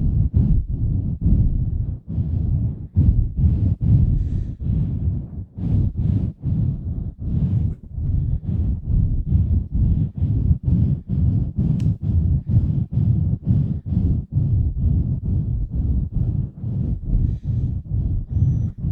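Hands cupped over a microphone and pumped fast, giving a steady rhythm of muffled, deep whooshes about twice a second.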